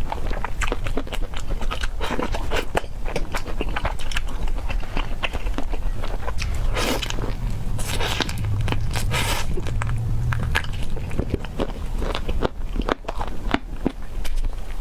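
Close-miked eating of spicy peanut chicken: bites and chewing, with a dense run of crunches and mouth clicks and a few longer, louder chewing sounds in the middle, over a steady low hum.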